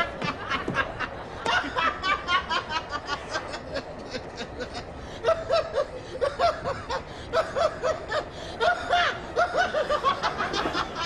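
Laughter: runs of short, rapid giggling syllables, several times over.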